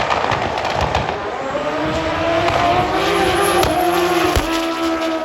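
Drag racing motorcycles running at full throttle down the strip. The exhaust is loud and crackling, and after a second or two a steady high engine note comes through.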